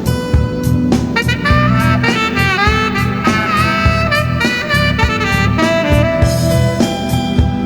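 Cannonball tenor saxophone playing a melody with bends and slides over a backing track with drums. The sax comes in about a second in.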